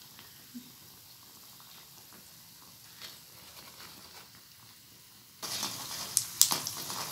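Hot oil sizzling as rice vadai deep-fry in a pan, faint and steady at first, then from about five seconds in much louder sizzling with sharp crackles and pops.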